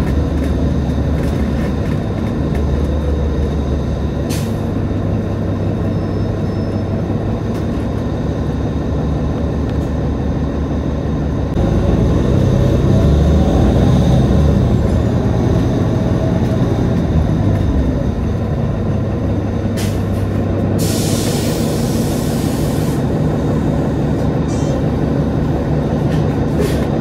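Nova Bus LFS city bus running, with a steady low engine and road rumble that swells for a few seconds midway. About three-quarters of the way through comes a roughly two-second burst of air hiss.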